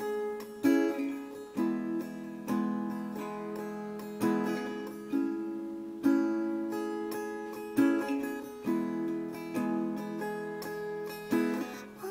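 Instrumental music: acoustic guitar chords plucked, each ringing out and fading, with a new chord about every second.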